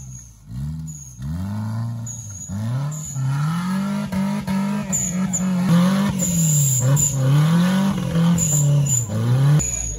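Off-road 4x4 engine revved hard and repeatedly in mud. A few short blips come first, then high revs held and swinging up and down for several seconds, cutting off shortly before the end.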